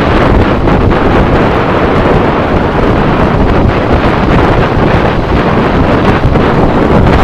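Heavy wind noise on the microphone of a camera on a moving motorcycle: a loud, steady rush with no break.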